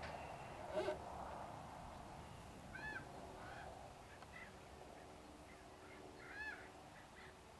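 A bird gives two short rising-and-falling calls, one about three seconds in and another near the end. A short knock sounds about a second in.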